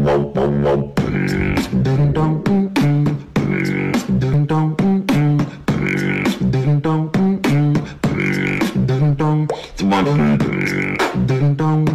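Background music with a steady beat and held melodic notes, loud throughout.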